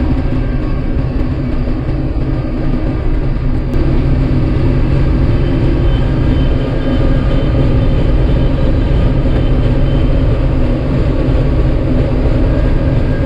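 Combine harvester running steadily in wheat, a loud continuous engine and machinery drone that grows a little louder about four seconds in.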